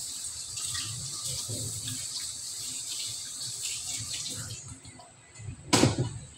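Kitchen tap running into a stainless steel sink as raw chicken pieces are rinsed under it, with plastic bag rustling. The water stops a little after halfway, and near the end comes one loud knock.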